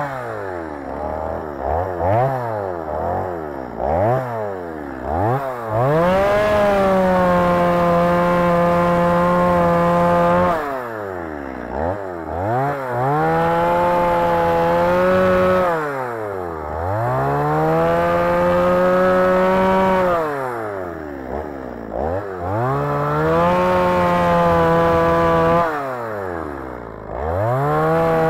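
Gas chainsaw cutting small stumps at ground level in sand. It is throttled up and held at high speed for a few seconds at a time, then dropped back to idle between cuts, with several quick blips of the throttle near the start.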